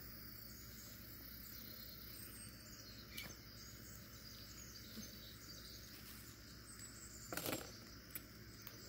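Quiet outdoor yard ambience: a steady high insect drone with faint bird chirps, a couple of small clicks, and a brief scuffling sound about seven and a half seconds in.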